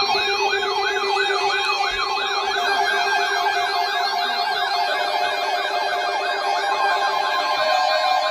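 Electronic siren in a rapid up-and-down yelp, about three sweeps a second, growing denser as a second yelping tone overlaps, over a steady lower tone that stops near the end.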